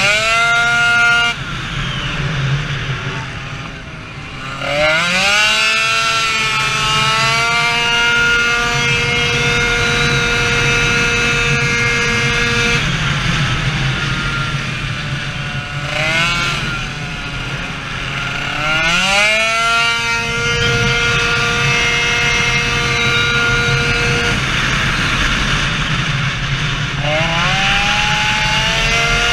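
Two-stroke 70cc Minarelli racing scooter engine with an expansion exhaust, at full throttle. The pitch climbs sharply several times and then holds at a steady high note while the variator shifts up. It falls away in between when the throttle is shut.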